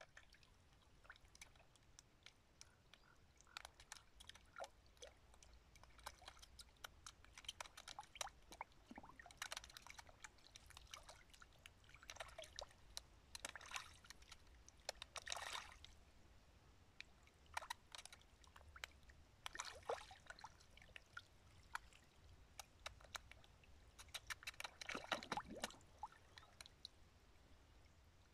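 Fish taking floating bread at the water surface: scattered clusters of small splashes and sucking, dripping water sounds, the loudest cluster about three seconds before the end.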